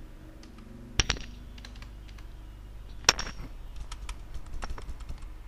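Typing on a computer keyboard: a run of quick, light key clicks, with two sharper, louder strikes about a second in and about three seconds in.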